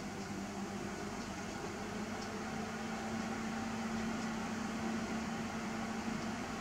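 Steady mechanical hum with a low tone, and a few faint ticks in the first couple of seconds.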